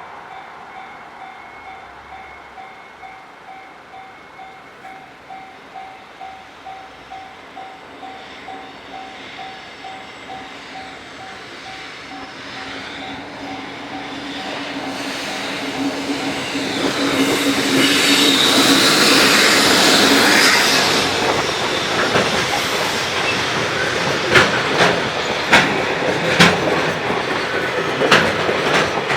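A level-crossing alarm rings in a steady pulsed rhythm. About twelve seconds in, a JR Freight EF65 electric locomotive approaches with a rising hum and passes loudest around eighteen to twenty seconds. Its freight wagons follow, their wheels clacking over the rail joints.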